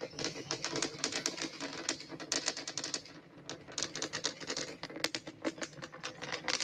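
Distant crackle of the Super Heavy booster's 33 Raptor engines during ascent: a dense, irregular run of sharp pops and cracks, easing briefly about three seconds in.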